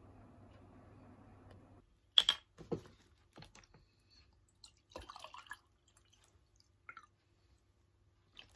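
Water poured from a plastic bottle into a glass tumbler, heard as a sharp knock about two seconds in, then scattered glugs and splashes as the glass fills. Before that, faint steady room noise.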